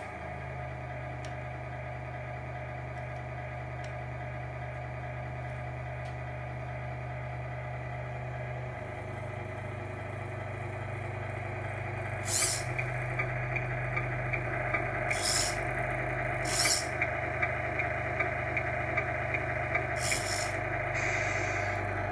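Electronic sound unit of a Tamiya Grand Hauler RC truck playing a simulated truck engine running, its pitch stepping up and down. From about halfway through come several short hisses and a regular clicking.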